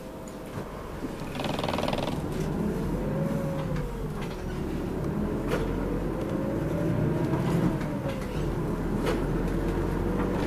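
City route bus heard from inside the cabin pulling away and getting up speed: a low engine rumble that grows louder about a second and a half in, with a drivetrain whine that rises and falls several times as it accelerates through the gears. A short hiss near the start of the pull-away and a few sharp rattles or knocks from the body are heard along the way.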